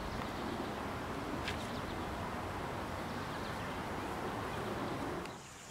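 Steady outdoor background noise in an open park, a dull even rush with a few faint high chirps over it; it drops away shortly before the end.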